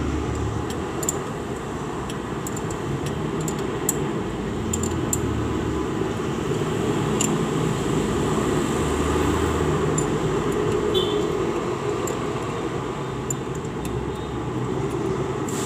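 Light metallic clicks of a wrench on the rocker-arm adjusters of a cylinder head, scattered mostly through the first half. Beneath them runs a steady low rumble of background machinery that rises and falls slowly.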